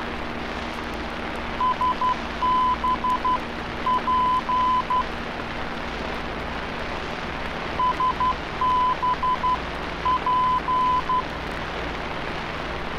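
The San Luis Obispo VOR's Morse code station identifier, SBP, keyed as a single high beeping tone in dots and dashes and sent twice, over a steady hiss of radio static from the aircraft's navigation receiver. The identifier confirms that the receiver is tuned to the right navigation station.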